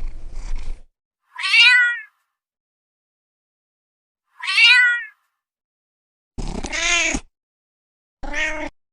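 A cat meowing four times, each meow a separate call with silence between. The first two are high and fall in pitch; the last two are lower and arched. A brief noisy rustle comes right at the start.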